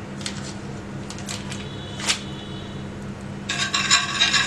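A metal spoon on a tawa griddle, spreading butter: a few light ticks, a sharp clink with a short metallic ring about two seconds in, then busy scraping and clattering against the pan from about three and a half seconds in.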